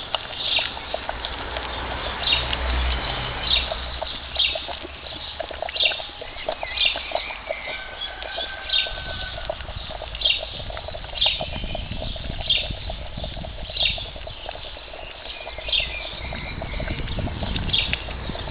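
Quicklime slaking in water in a plastic bucket, the mix boiling with a dense fine crackling and popping. A bird gives a short high chirp about once a second over it.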